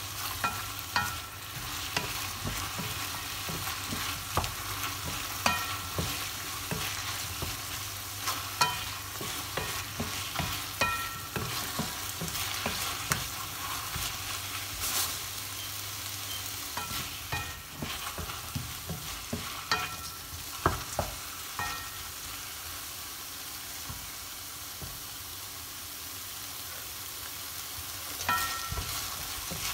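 Celery and pineapple sizzling in a stainless-steel frying pan as a wooden spatula stirs and tosses them, with frequent sharp knocks of the spatula against the pan, some leaving a brief metallic ring. The knocks thin out for a few seconds near the end while the sizzle carries on.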